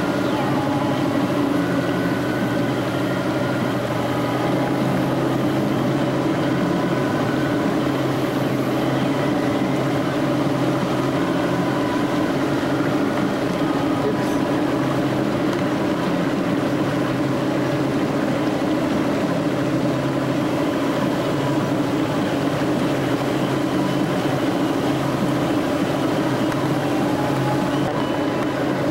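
Engine of a 20-foot Hydrodyne ski boat running steadily under way, a constant drone that holds one pitch throughout.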